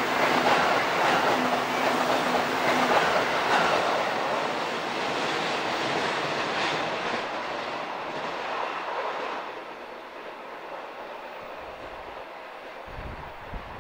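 Electric train running through a curve, wheels clattering over rail joints, loud at first and then fading away as it recedes, with a clear drop in level about nine or ten seconds in.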